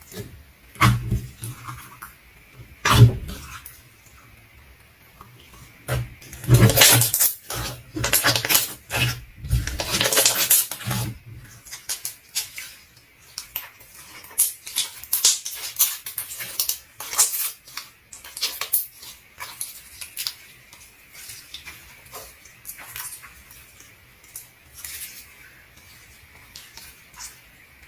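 Slime being squeezed and pressed by hand, giving a run of sticky clicks, pops and crackles, busiest and loudest about a third of the way in, then lighter and sparser.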